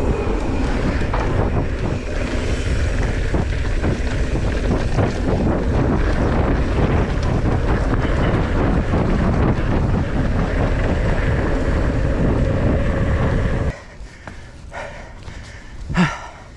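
Wind buffeting the microphone of a mountain bike's handlebar camera while riding down a dirt trail, mixed with tyre and trail rattle. The noise drops suddenly about three-quarters of the way through, and a short voice-like sound follows near the end.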